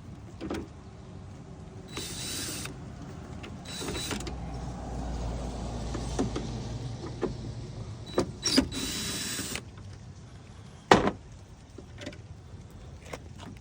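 Cordless drill whirring in three short bursts as it backs out the tail light mounting bolts, with a single knock near the end.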